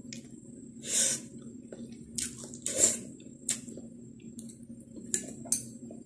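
A person slurping and chewing thin noodles: a series of short, wet slurps and mouth smacks, the loudest about a second in and near three seconds.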